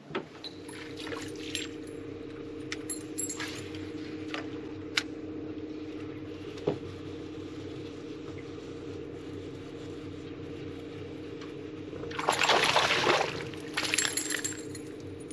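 Electric trolling motor humming steadily, with a few light ticks from the casting reel and line in the first five seconds. About twelve seconds in, a hooked small bass splashes at the surface for a second or so, then splashes again briefly.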